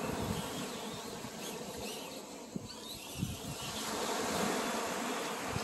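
Axial SCX24 micro RC crawler's small brushed electric motor and gears whining steadily as it drives through loose sand.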